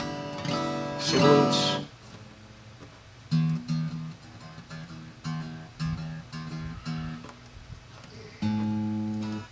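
Guitar played near the microphone: a run of about eight single low plucked notes, then a chord strummed and left ringing near the end.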